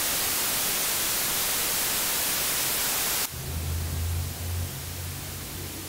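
Loud television static, an even white-noise hiss that cuts off suddenly about three seconds in, dropping to a softer hiss under a steady low electrical hum.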